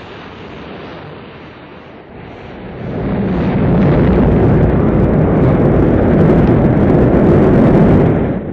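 Rocket launch: the engines ignite with a rushing noise that swells, about three seconds in, into a loud, steady rumble, which dips briefly near the end.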